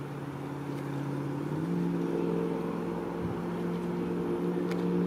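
A steady low hum with a clear pitch, like a motor running, that steps up in pitch and gets a little louder about a second and a half in.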